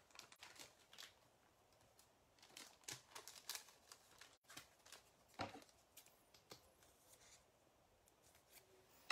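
Faint, scattered rustles and taps of trading cards being handled and slid against one another.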